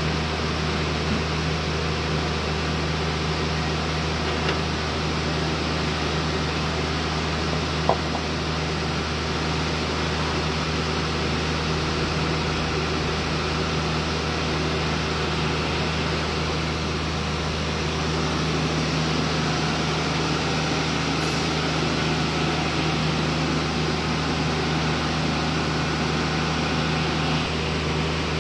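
Tsuzumi TDG15 silent diesel generator's four-cylinder engine running steadily under its enclosure, an even low hum that does not change. A single short click about eight seconds in.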